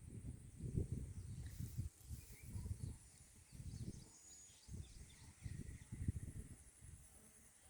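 Quiet outdoor ambience: irregular low rumbles of wind on the microphone, with faint bird chirps and a steady high insect whine.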